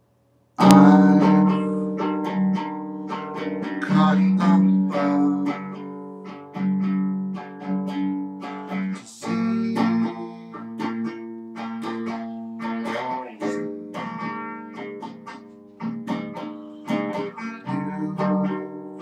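Solo guitar playing a run of picked notes and chords, starting suddenly about half a second in.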